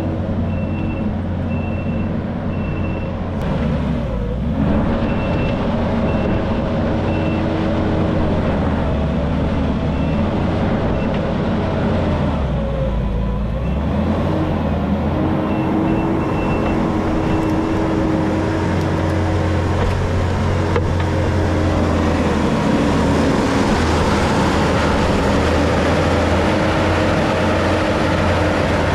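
Heavy construction machine's engine running, its pitch rising and falling as it works, with a backup alarm beeping in runs through roughly the first two-thirds. Near the end the machine gets louder and harsher as it is pushed harder.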